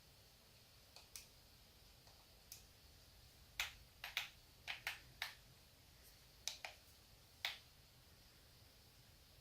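About a dozen light, sharp clicks and taps at an irregular pace, several in quick pairs, from fingers working a device's keys or screen, over a faint steady hiss.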